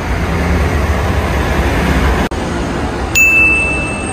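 Street traffic noise with a steady low rumble. About three seconds in, a short, high electronic tone starts abruptly and holds for about a second.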